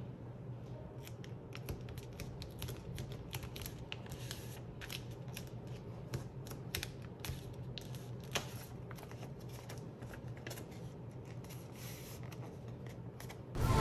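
A sheet of paper being folded and creased by hand into a paper airplane, with a run of faint, irregular crinkles and rustles as the fingers press the folds. Music comes in loudly at the very end.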